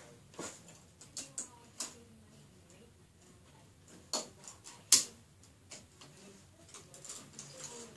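Scattered, irregular sharp clicks and light knocks, the loudest about five seconds in, with a quick cluster near the end.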